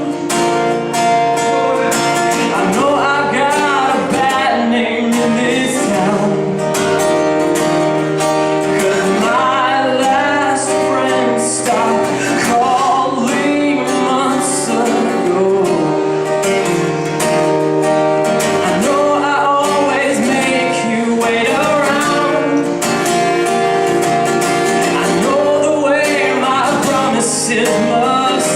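A band playing a song: singing over a strummed guitar, with steady, full accompaniment throughout.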